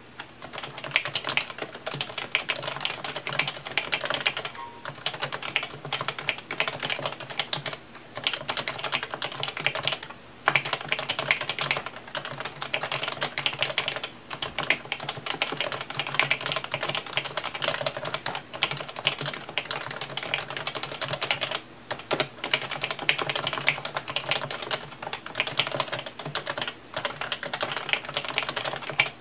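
Fast, continuous typing on a PFU Happy Hacking Keyboard Professional 2 with electrostatic capacitive (Topre) key switches: a dense stream of keystrokes, broken by short pauses every few seconds.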